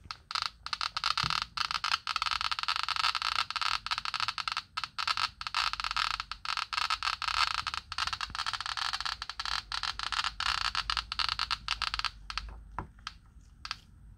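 FH 40 T radiation survey meter's Geiger counter clicking so fast that the clicks merge into a dense crackle: a very high count rate from pitchblende uranium ore. About twelve seconds in, the rate drops to scattered single clicks once the probe is taken away.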